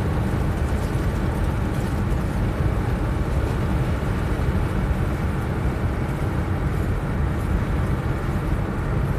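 Steady road and engine noise of a car driving along, heard from inside the cabin, heaviest in the low rumble and unbroken throughout.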